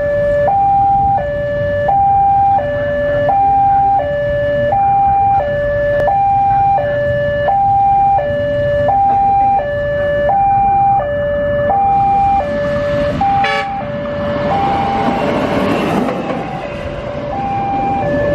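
Railway level-crossing warning alarm sounding an electronic two-tone signal, alternating high and low about every 0.7 seconds. In the last few seconds a train's engine and wheel noise swells beneath it as the train approaches and passes.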